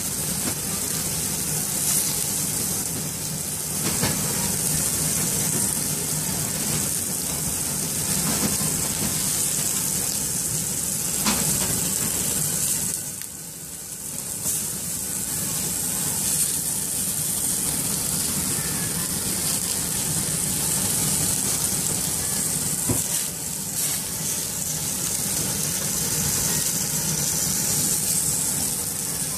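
Steak sizzling on a flame grill's grate, fat spitting into the flames, over a steady low hum. The sizzle briefly dies down about halfway through.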